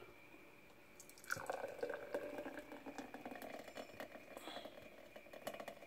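Thick blended fruit smoothie pouring from a blender jug into a glass, faint and irregular with small wet clicks, starting a little over a second in.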